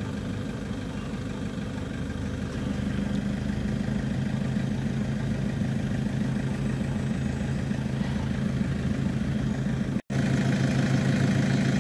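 A parked van's engine idling steadily, with a momentary dropout about ten seconds in.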